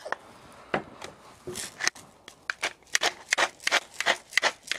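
Pepper mill being twisted to grind pepper: a fast run of short scratchy grinding strokes, about five a second, starting about two and a half seconds in. Before it come a few separate knocks.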